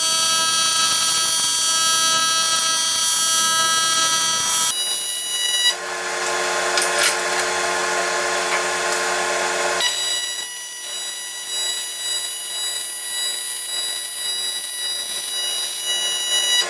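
AC TIG welding arc on aluminum sheet, a steady electric buzz made of many tones. The buzz changes abruptly about five seconds in and again about ten seconds in, with a few clicks in the middle stretch.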